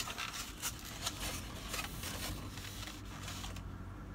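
Faint scattered rustling and small clicks, as of a candy packet being handled.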